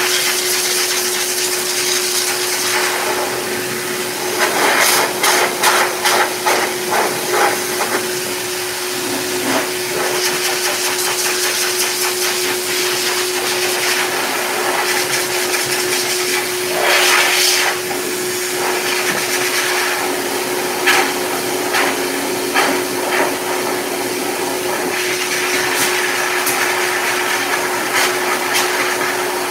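Heavy-duty K9 dog dryer blowing steadily, a loud rush of air over a constant motor whine. The air flutters and surges at times as the nozzle works through the Bernese mountain dog's thick, wet coat, most strongly around five to seven seconds and about seventeen seconds in.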